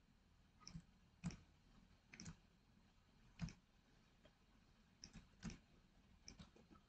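Faint, irregular clicks of a computer mouse and keyboard keys, a dozen or so, some in quick pairs.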